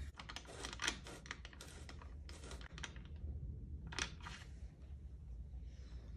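A quick run of light clicks and taps, then a single sharper tap about four seconds in, over a low steady hum.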